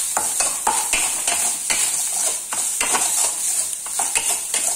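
Grated coconut sizzling as it roasts in ghee in a metal kadai. A metal spatula stirs and scrapes it against the pan two or three times a second over the steady sizzle.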